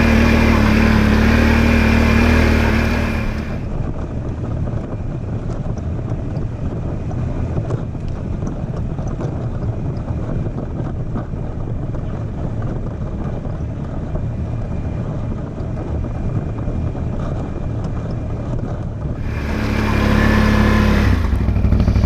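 Can-Am Outlander 850 ATV's V-twin engine running steadily as it climbs a steep dirt hill. About three and a half seconds in the sound turns duller and rougher, a muffled engine, and the clearer engine sound comes back near the end.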